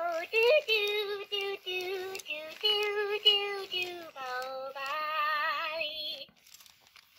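Furby toy singing a short tune in its high electronic voice: a run of short sung notes, then a long wavering note that stops about six seconds in.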